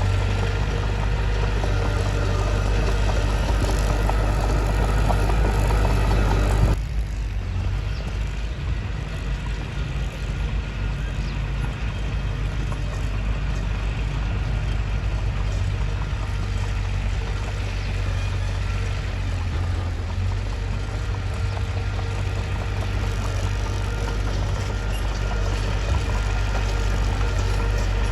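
Mitsubishi bulldozer's diesel engine running steadily, with an abrupt change in the sound about seven seconds in, where it drops a little in level and loses much of its higher-pitched clatter.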